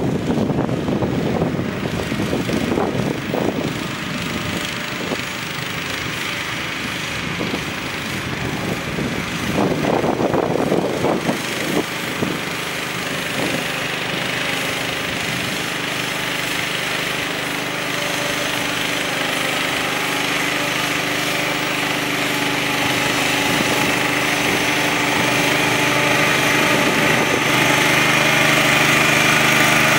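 Small engine of an EZ Mover Turbo motorized shed dolly running steadily under load while pushing a shed, growing gradually louder as it comes closer. Irregular rushing noise breaks through during the first dozen seconds.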